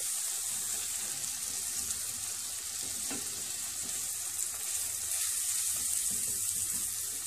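Butter and grated onion sizzling steadily in a stainless steel saucepan while flour is stirred in with a silicone spatula: the roux stage of a béchamel sauce.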